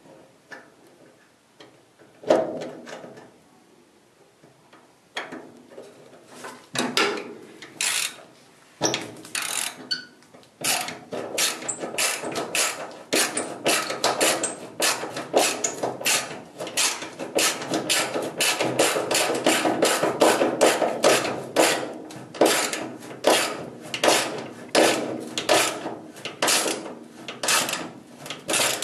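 Hand ratchet wrench on a socket extension turning a screw, its pawl clicking with each back-swing: a few scattered strokes at first, then steady ratcheting at about two strokes a second from about ten seconds in.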